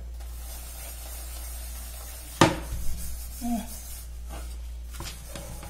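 Aluminium pot scrubbed with a soapy sponge: a steady rubbing hiss, then a sharp clank of the pot about two and a half seconds in, followed by a few lighter knocks.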